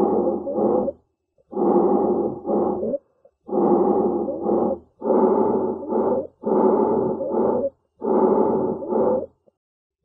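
A child with croup breathing with stridor at rest, the sign of moderate croup: six quick breaths about a second and a half apart, each a longer noisy part followed by a shorter one.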